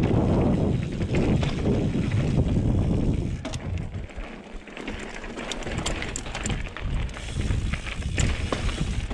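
Trek Remedy 8 full-suspension mountain bike riding over rock, with tyre noise and a low wind rumble on the helmet-mounted microphone. The rumble drops away about four seconds in, and from about six seconds in the bike's frame and drivetrain rattle and click quickly over rough ground.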